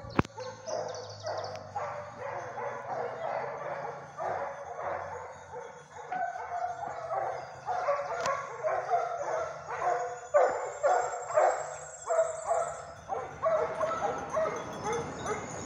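Boar-hunting scent hounds baying in a steady run of barks, about two to three a second, giving tongue as they follow a fresh wild boar trail.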